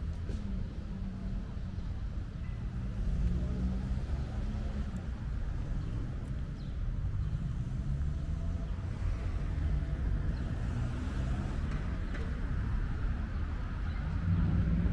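City street traffic: cars running past with a steady low engine and tyre rumble, a little louder near the end.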